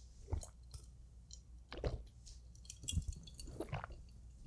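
A person chewing food close to a microphone: soft, wet mouth clicks and smacks at irregular intervals, a few standing out above the rest.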